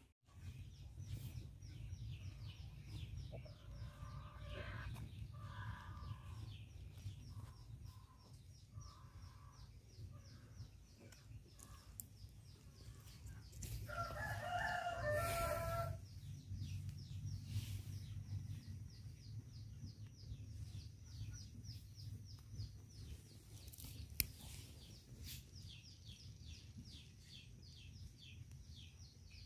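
A rooster crowing, with one strong call of about two seconds about halfway through and weaker calls earlier. Under it run a fast, even, high-pitched pulsing and a low steady rumble.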